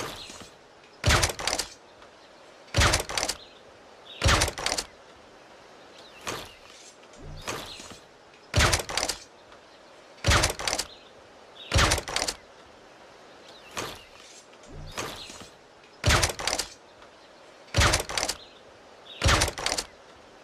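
Air rifle shots, a sharp report about every one and a half seconds. They repeat in a cycle of two softer shots followed by three louder ones, each loud one a quick double crack.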